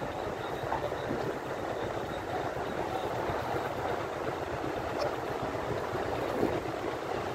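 Wind and road noise from riding along a street: a steady rumbling hiss with no clear engine note.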